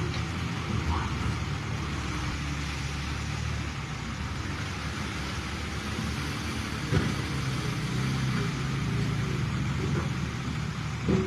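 Heavy construction machine's diesel engine running steadily, with a short knock about seven seconds in and another near the end.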